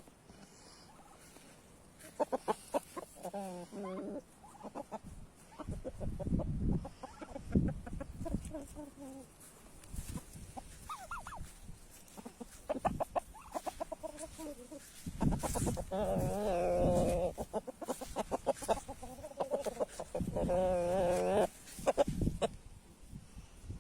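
Domestic chickens and roosters clucking and calling, with several longer warbling calls, the most prominent about two-thirds of the way through and near the end.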